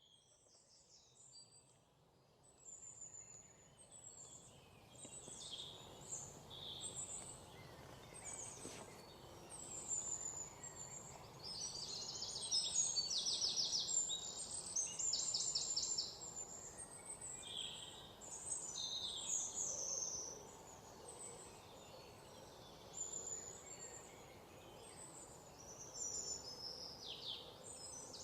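Forest birds singing and chirping, several calls overlapping, with fast trills that are loudest in the middle, over a faint steady background hiss. The sound fades up from near silence over the first few seconds.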